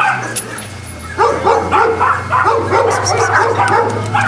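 Boston Terriers barking and yipping: a quick run of short, high barks, about three a second, starting about a second in.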